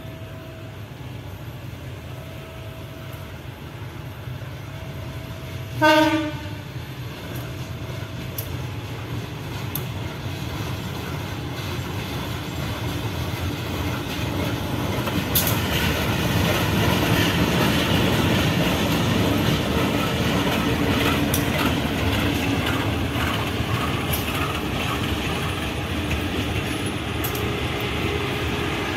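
CC 201 diesel-electric locomotive giving one short horn blast about six seconds in. Its engine runs as it draws near and passes, hauling a diesel multiple unit set, with the wheels clacking over the rails and growing louder from about halfway.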